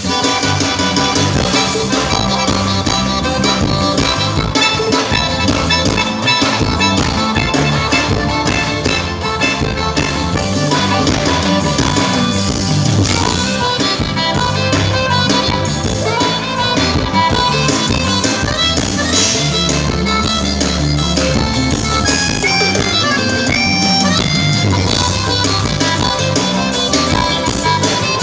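Live forró band playing at full volume, with accordion over a drum kit and a steady beat.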